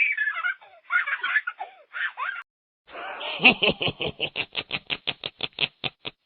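Two laughing sound effects one after the other: first high-pitched giggling in three short bursts, then, about three seconds in, a deeper rhythmic laugh of quick "ha" pulses, about five a second, tailing off.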